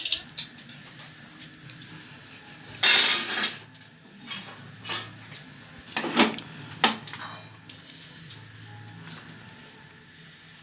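Dishes and utensils clattering: a loud scrape about three seconds in, then a few sharp knocks a few seconds later.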